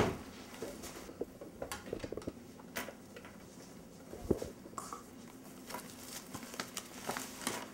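Quiet office room tone with soft, scattered taps and light knocks from footsteps and from coffee cups and papers being handled, with one slightly louder knock about four seconds in.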